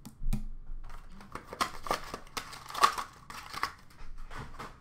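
Trading-card packaging being handled: cardboard card boxes and a plastic card holder tapped, slid and rustled, a quick irregular run of clicks and rustles with the sharpest click a little under three seconds in.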